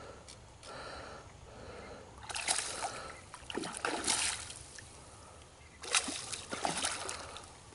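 A hooked catfish thrashing at the surface of a pond, splashing in three bursts about two, four and six seconds in.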